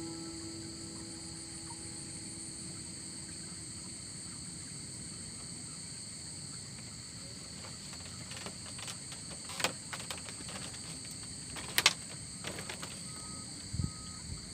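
Steady high-pitched chirring of night insects, crickets among them. A few sharp clicks and a soft knock come in the second half.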